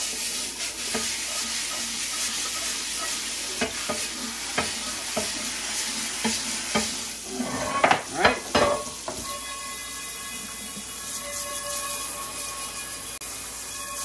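Stiff brush scrubbing a hot cast iron pan under running water, the water sizzling on the hot iron. Around eight seconds in come a few loud scraping strokes, then a sink sprayer hisses onto the pan with a few steady ringing tones.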